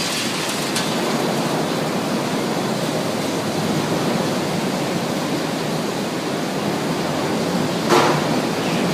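Steady rushing riding noise from an off-road motorcycle, with a sharp knock near the end.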